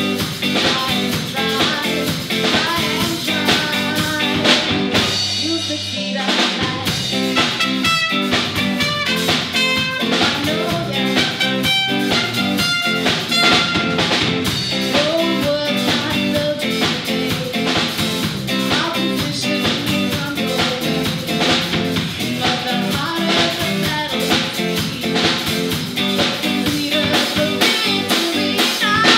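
Live reggae band playing: a woman singing lead over electric guitar, bass guitar, drum kit and trumpet. The drums drop out for a moment about five seconds in while the bass holds on.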